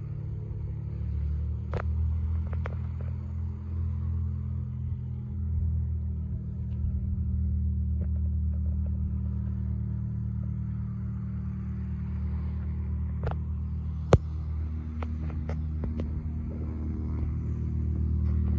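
A car engine idling: a steady low hum. A single sharp click sounds about three-quarters of the way through.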